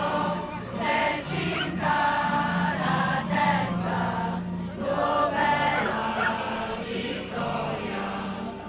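An anthem sung by many voices together in chorus, with music behind it.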